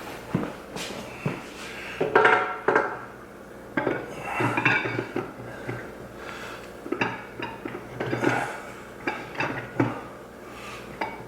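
Steel transmission parts and thrust washers clinking and knocking against each other and the 48RE case as they are fitted by hand: a string of irregular metallic clinks, the loudest about two seconds in.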